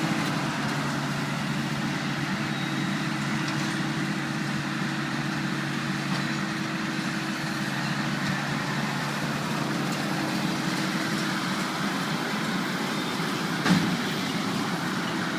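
Tractor and round hay baler running steadily, a constant engine note under machinery noise, with a single short clunk near the end.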